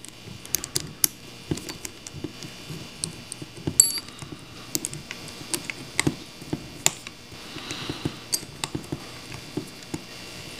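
A small metal nut and washer being turned by hand onto a threaded bolt: scattered, irregular light clicks and taps of metal hardware.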